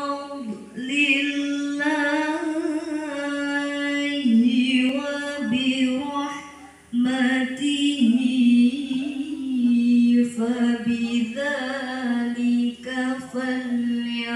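A qori's melodious Quran recitation (tilawah): one voice drawing out long ornamented phrases on a steady pitch, with a pause for breath about six and a half seconds in.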